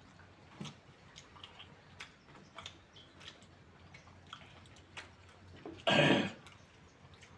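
Eating sounds: chewing with small scattered clicks and taps, and one short loud breathy burst about six seconds in.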